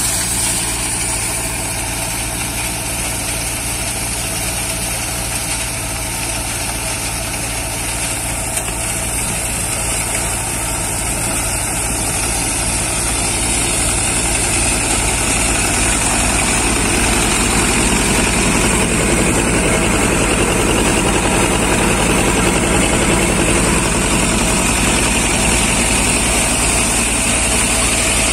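Swaraj 724 XM Orchard tractor's two-cylinder diesel engine running at a steady speed, driving a belt-driven multicrop thresher whose spinning drum and blower add a steady whirring hum. The machine noise gets louder a little past halfway.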